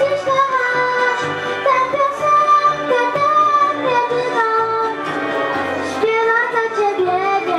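A young boy singing a song into a handheld microphone with musical accompaniment, holding notes and moving between them.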